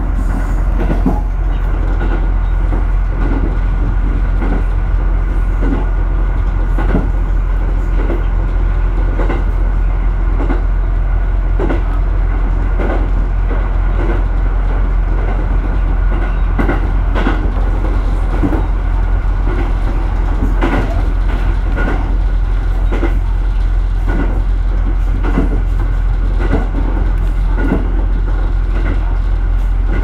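Diesel railcar running along single track, heard from the driver's cab: a steady low rumble with the clack of the wheels over rail joints coming irregularly throughout.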